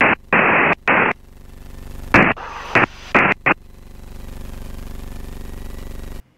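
Several short bursts of radio static over the headset intercom, under which the Van's RV-9A's engine runs at idle. The engine hum builds a little, holds steady and cuts off suddenly near the end.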